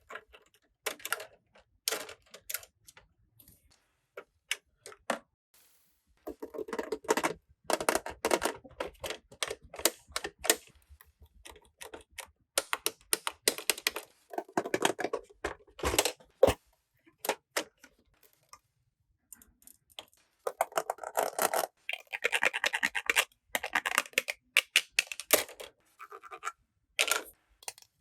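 Small plastic toy barbecue pieces being handled: irregular clicks and taps, with longer stretches of busy clicking, rattling and scraping.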